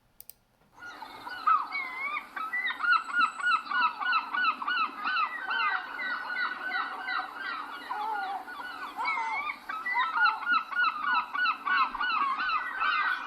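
Several gulls calling over one another, a mix of long drawn calls and rapid runs of short, jerky notes, starting about a second in. The birds may be squabbling.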